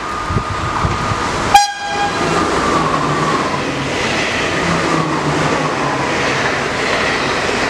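NS double-decker electric passenger train sounds a short horn blast about a second and a half in, then passes at speed with steady rushing wheel and rail noise and a faint whine falling in pitch.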